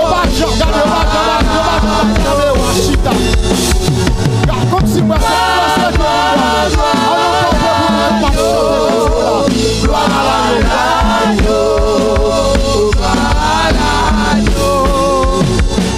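Live gospel worship singing: several voices singing together through microphones, with wavering sustained notes, over band accompaniment with steady percussion.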